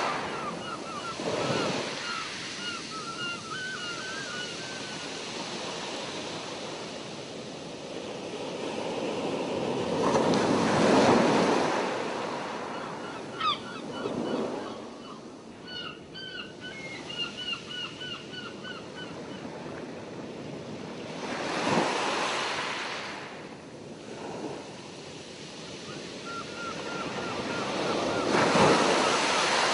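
Ocean waves washing in, swelling to a louder surge about every ten seconds, with a bird giving runs of short, quick chirps over them.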